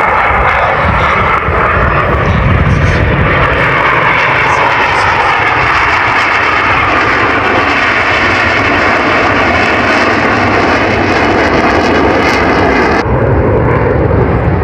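Fixed-wing aircraft flying past with its engine running loudly, the pitch falling as it goes by. Near the end the sound abruptly turns duller.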